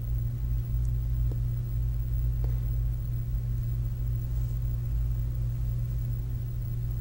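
Steady low hum with two faint clicks, about one and two and a half seconds in.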